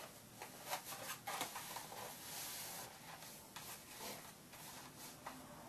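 Faint handling sounds: a few soft taps and rustles as a plastic sheep mask is lifted and put on over the face.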